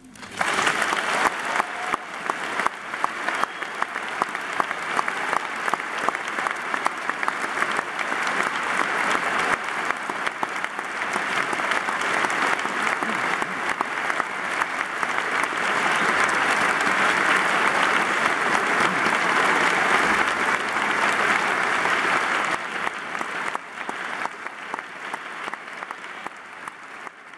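A large audience in a concert hall applauding at the end of a choral piece. The applause breaks out suddenly, builds to its loudest a little past the middle, then thins out and fades near the end.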